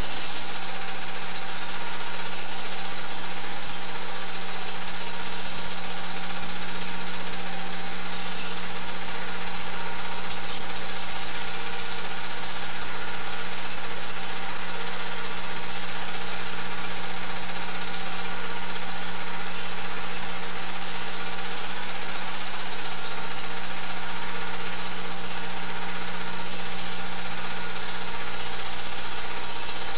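Super 8 film projector running with a steady motor hum and whir, unchanged throughout.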